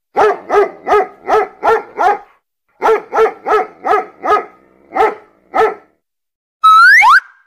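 A dog barking in quick runs, about a dozen barks with two short pauses between the runs. Near the end comes a brief rising whistle-like glide.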